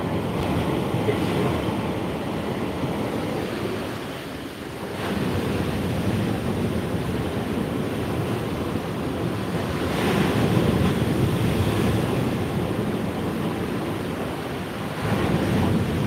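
Black Sea surf: waves breaking and washing up the beach in a rough sea, swelling in three surges about five seconds apart.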